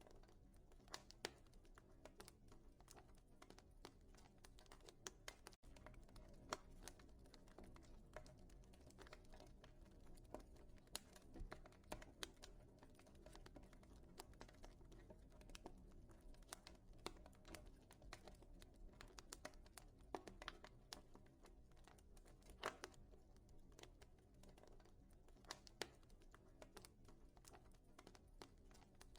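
Quiet wood fire crackling in a fireplace: irregular sharp snaps and pops over a steady low rumble.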